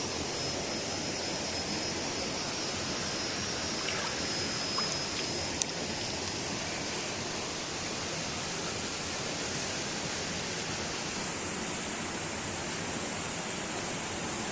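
Steady rush of flowing water from a stream or small waterfall, with a single sharp click about five and a half seconds in.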